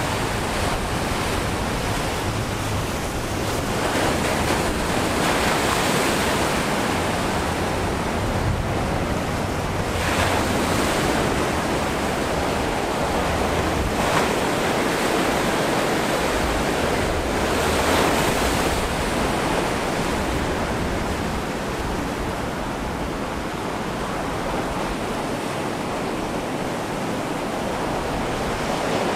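Ocean surf: a steady rush of breaking waves and whitewater that swells and eases every few seconds, with wind buffeting the microphone.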